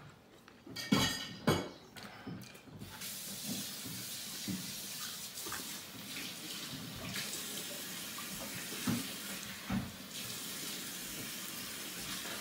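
Kitchen faucet running into the sink, a steady hiss of water that starts about three seconds in. A couple of knocks come just before it, and a few light knocks of dishes come while it runs.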